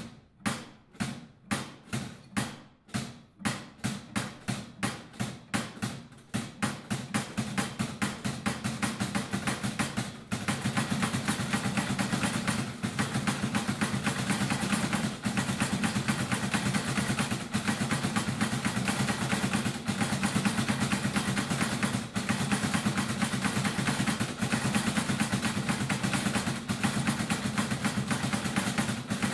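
Wooden Good Friday clappers (klepáč) knocking, slowly at first at about two strokes a second, then speeding up over the first ten seconds into a continuous rapid wooden rattle. This is the Easter clapping that stands in for church bells on Good Friday.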